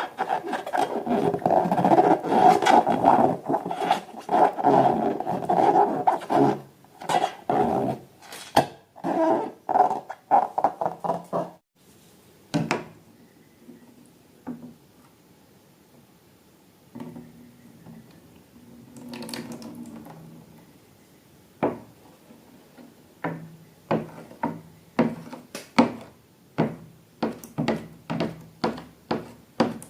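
A rubber balloon letting its air out in a rough, growl-like rush for about the first twelve seconds. Then come scattered short clicks and soft squishy handling sounds, turning into a quick run of taps near the end.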